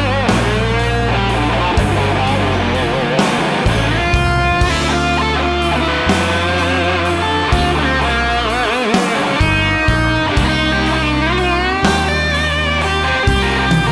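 Live rock band playing an instrumental break: electric guitar lead with bent, wavering notes over bass guitar and a steady drum beat.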